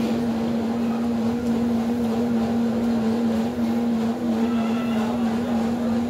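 A steady low hum on one unchanging pitch over the general noise of a room.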